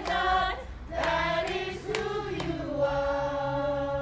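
A group of children singing a worship song together, ending on one long held note from about three seconds in.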